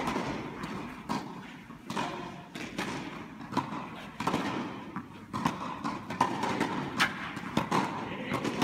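Tennis balls struck by rackets and bouncing on the court in a large indoor tennis hall: an irregular run of sharp pops and thuds, several a second at times.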